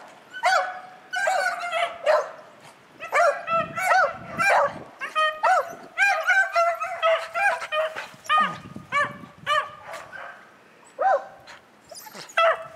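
Beagle hounds baying in rapid, repeated barks, sometimes overlapping, while running a snowshoe hare's track in a chase.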